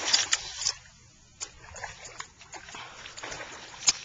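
A hooked redfish (red drum) thrashing at the surface: a burst of splashing in the first second, then scattered small splashes and sharp clicks, with one loud click near the end.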